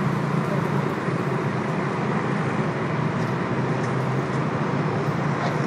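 Road traffic on a busy multi-lane city avenue: a steady wash of engine and tyre noise from many passing cars and buses.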